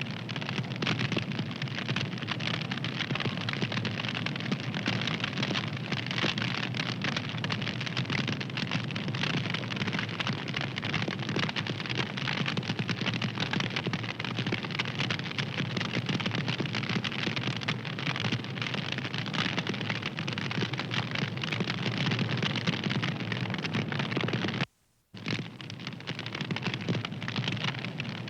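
Wood fire crackling: a dense run of small pops and snaps over a steady hiss. The sound drops out for a split second near the end, then goes on.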